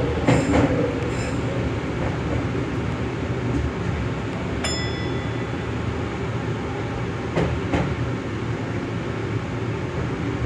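Nagoya Tsurumai Line subway train running along the track, heard from inside at the front of the train: a steady low rumble with a few wheel clacks over rail joints. A short ringing tone sounds about halfway through.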